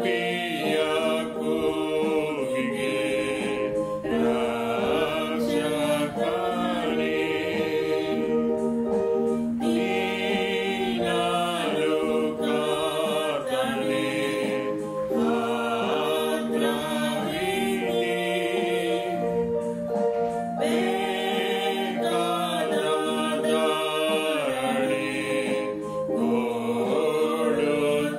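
A woman sings a Kannada Christian hymn solo over sustained chords from a Yamaha electronic keyboard. Her voice carries the melody line by line, with brief breaks between phrases, while the keyboard holds steady notes underneath.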